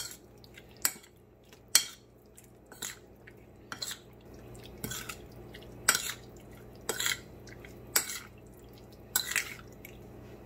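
A metal spoon mixing raw chicken pieces in a soy sauce marinade in a bowl: short wet squishing strokes and spoon clinks against the bowl, about one a second.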